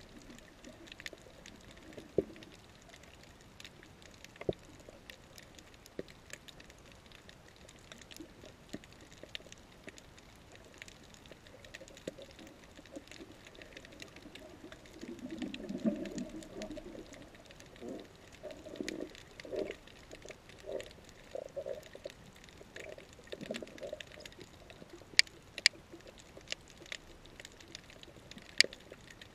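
Underwater reef ambience picked up through a camera's waterproof housing: scattered sharp clicks and crackles, a low muffled rumble about halfway through, then a run of short low pulses, and a few louder clicks near the end.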